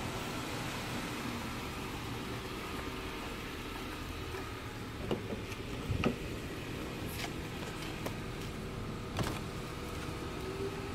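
Driver's door of a Honda CR-V being opened, with short latch clicks and knocks about five to six seconds in and another click a little after nine seconds, over a steady hum.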